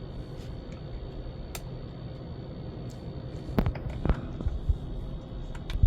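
Scattered light clicks and knocks of hand tools and screws being handled on an electric unicycle's frame, over a low steady hum. The loudest knock comes near the end.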